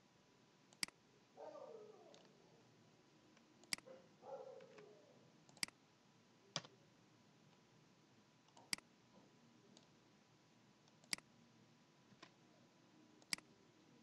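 Sparse, sharp single clicks of a computer mouse, about seven spread a second or more apart, against near silence. Two brief muffled sounds come in about one and a half and four and a half seconds in.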